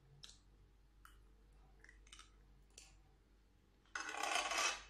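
A few faint clicks while chewing a mouthful, then, about four seconds in, a loud scrape of a metal spoon against a stone-coated frying pan as more food is scooped.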